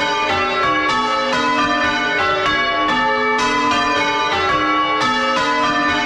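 A ring of six chip-tuned church bells, tenor about 9 cwt, swinging full circle and being rung in changes, heard close up in the belfry. Each bell strikes in turn, roughly every half second, and its ringing tones overlap the next bell's.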